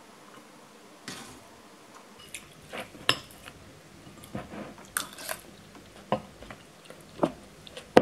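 Irregular light clinks, taps and knocks of a ceramic bowl and kitchenware being handled, with a couple of brief rustling swishes about a second in and again near five seconds.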